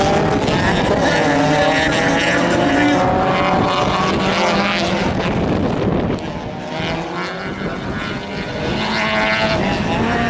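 Rallycross car engines at full race revs, the pitch climbing as the cars accelerate. The sound drops back about six seconds in and builds again near the end.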